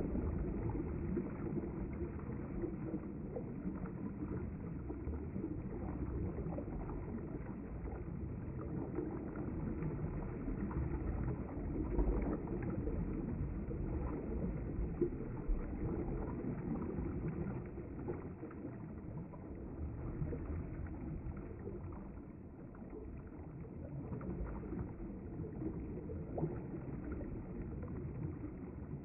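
River water flowing past the bank: a steady, low rushing that eases off a little in the second half.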